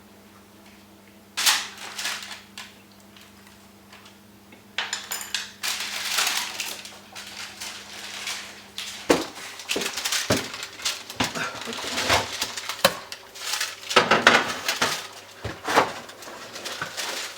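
Spoons and bowls clinking, scraping and clattering in irregular bursts, with many sharp knocks in the second half. A low steady hum stops about halfway through.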